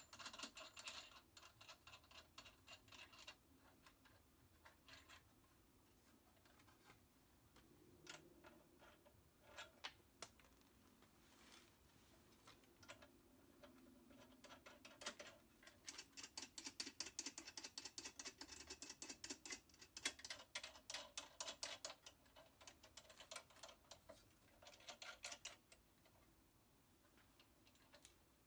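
Socket ratchet clicking in several quick runs, the longest lasting about six seconds midway, as the spare tire's lug nuts are run down onto the relocation bracket studs.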